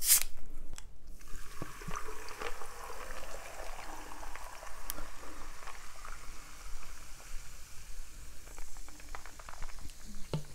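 The cap of a plastic bottle of Trevi sparkling water is twisted off with a short, sharp hiss of escaping gas. The water is then poured over ice into a glass, fizzing steadily with scattered small clicks.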